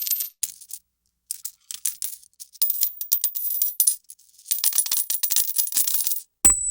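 Coin sound effects: about four separate bursts of many small metallic clinks, like coins dropping and spilling onto a hard surface, with short pauses between them. Near the end comes a sudden low thump and a high ringing tone starts.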